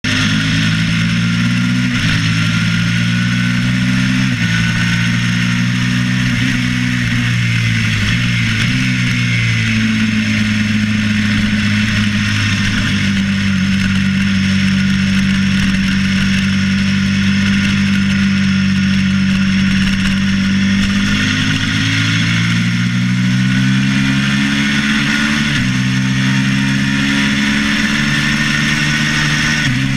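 Suzuki SV650 race bike's V-twin engine under hard riding, heard onboard: its pitch climbs and drops back with upshifts near the start and three more in the last third, and it holds a steady high note through a long corner in the middle. Wind rush runs under it throughout.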